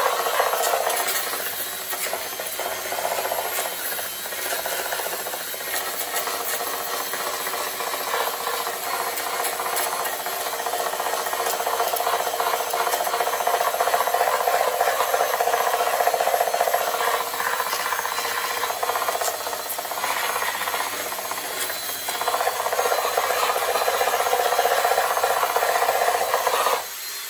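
Continuous sanding of dried Bondo filler on a fiberglass Corvette headlight housing, taking off the roughness; the sound varies in strength and cuts off suddenly near the end.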